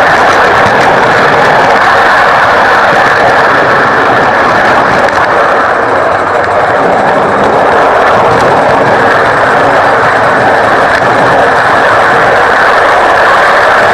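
Steady, loud rushing noise of a small coal-fired live steam garden-railway train running, heard from a camera riding aboard its wagons, with no distinct exhaust beats.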